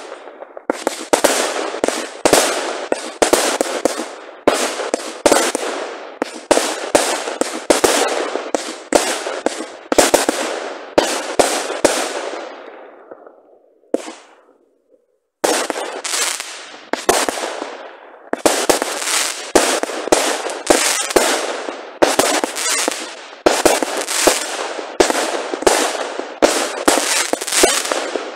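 Firework batteries firing a rapid string of aerial shots and bursts, about two a second, each bang dying away quickly. About halfway through the firing stops for a second or two, then starts again.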